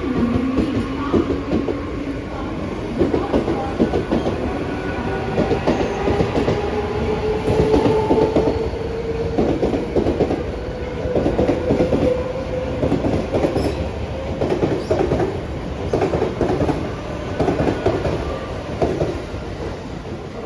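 Mumbai suburban local electric multiple-unit train running past and pulling out. Its motor whine rises slowly in pitch as it picks up speed, over a rhythmic clatter of wheels on the rails.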